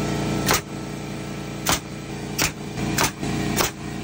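Portable air compressor running steadily while a pneumatic framing nailer fires five sharp shots into the wooden stair handrail, the last three about every half second.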